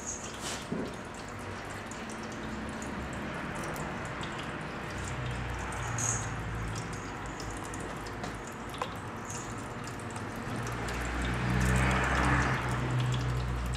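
Maine Coon kitten licking and chewing at its paw and a small toy ball: many small wet clicks and smacks over a low steady hum that grows louder near the end.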